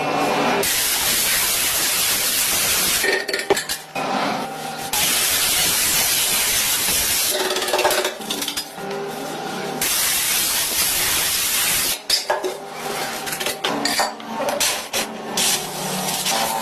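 Spray painting hissing in two long bursts, the second about twice as long as the first, then shorter broken sprays and light clinks, over background music.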